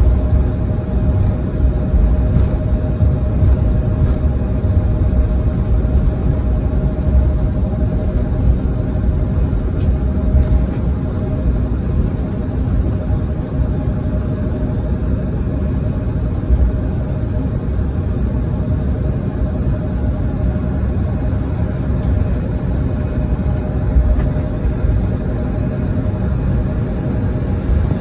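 Airliner cabin noise while taxiing after landing: a steady low rumble with a faint steady whine running through it.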